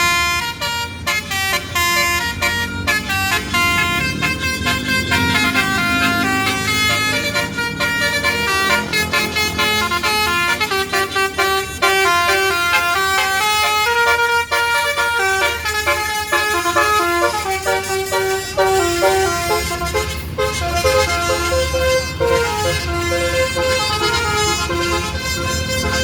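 Bus's Basuri telolet horn playing a long melody, its notes changing in steps with several tones sounding together, over a low engine rumble.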